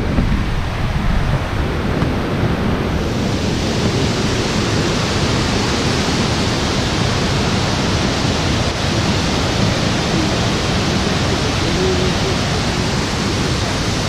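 Steady rushing of a nearby waterfall, a loud even hiss with a low rumble that grows fuller and brighter about three seconds in.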